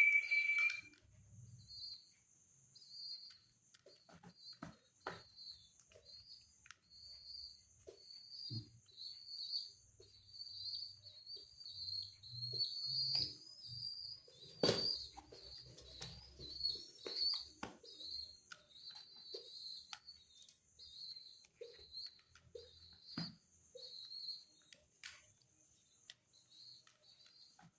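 High-pitched bird chirps repeating through the whole stretch, with scattered short clicks and knocks.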